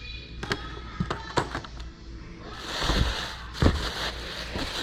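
Hot Wheels packaging and cases being handled: a string of light clicks and knocks, then a rustle of plastic and cardboard about two and a half seconds in, with two louder thumps.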